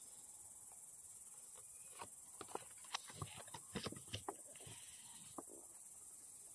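Faint clicks and taps of tarot cards being set down and gathered into the deck, clustered in the middle, over a steady high drone of insects such as crickets.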